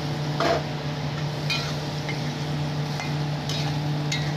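Prawns sizzling in hot mustard oil in a metal kadai, with a metal spatula clinking and scraping against the pan a handful of times as they are stirred. A steady low hum runs underneath.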